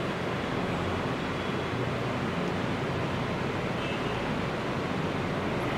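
Steady noise of electric fans running in the room, an even hiss with no separate events.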